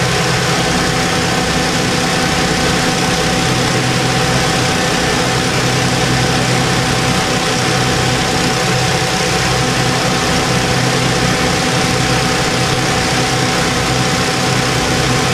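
Fire engine's diesel engine running steadily, a constant loud drone with a low hum and a thin higher whine that don't change.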